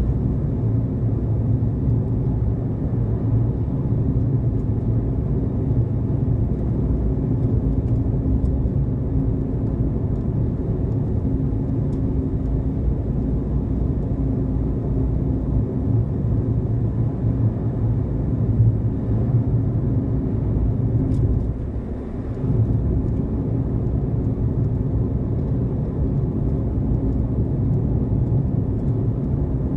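Steady low rumble of a car on the move, engine and tyre noise, with a brief dip about two-thirds of the way through.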